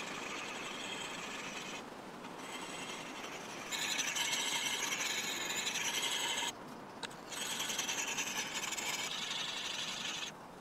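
Axe edge being honed on a round sharpening stone fixed into a carved stick: steady gritty scraping in long runs. It gets louder about four seconds in, breaks briefly two-thirds of the way through, and stops just before the end.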